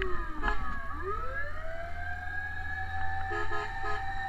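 Fire truck sirens wailing: the main tone falls to a low pitch about a second in, then rises again and holds steady. Three short horn blasts sound near the end, over a steady low rumble.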